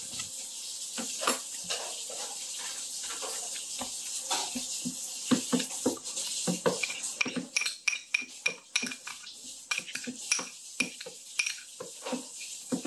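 Spoon and metal chopsticks clinking and scraping against a bowl and plates. The clinks are scattered at first and come thick and fast in the second half.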